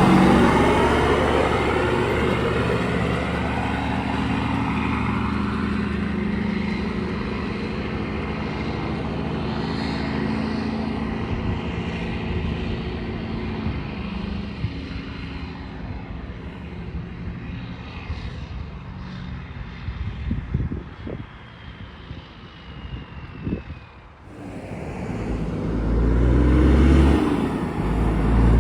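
A heavy vehicle passes close by and its engine noise fades slowly away over about fifteen seconds, with a few knocks around twenty seconds in. After an abrupt change near the end, a deep low rumble builds up.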